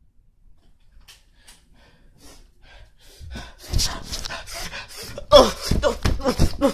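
Faint handling clicks, then, about three seconds in, a person starts quick, loud, breathy gasps with voice, each falling in pitch, coming about two or three a second and growing louder toward the end.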